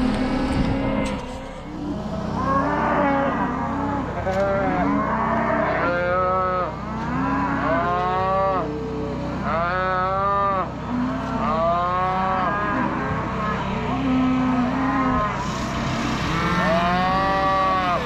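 Calves bawling during branding, many overlapping calls rising and falling over and over, with a steady low hum underneath.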